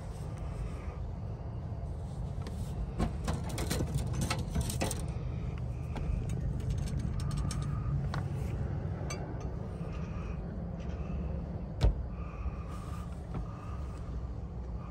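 Steady low rumble with scattered clicks and one sharp knock late on, from a tintype plate and its holder being handled in a darkroom.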